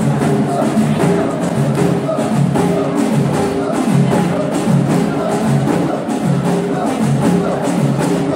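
Moroccan folk troupe beating frame drums in a steady rhythm while the men sing together.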